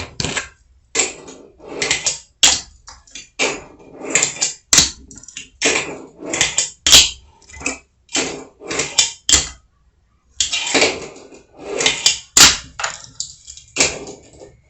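Fingerboard wheels rolling across a ramp, broken again and again by sharp clacks of the board popping and landing during repeated trick attempts, with a brief pause about ten seconds in.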